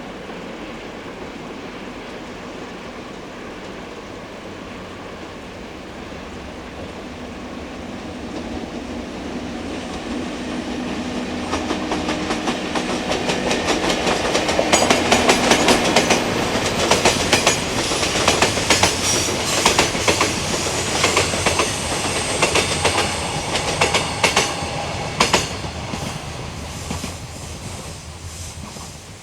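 Electric train passing on the Hakubi Line. It approaches, and its wheels click rapidly over the rail joints through the middle of the passage, loudest about halfway in. It then fades away near the end.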